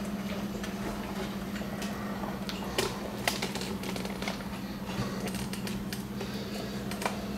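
Salt cod pieces cooking in olive oil in a frying pan, the oil crackling with irregular small pops and ticks over a steady low hum. These are the gentle pops of cod confited for bacalao al pil pil, the popping the dish is named after.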